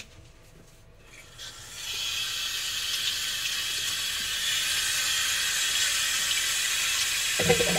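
Bathroom sink tap turned on a little under two seconds in, then water running steadily into the washbasin.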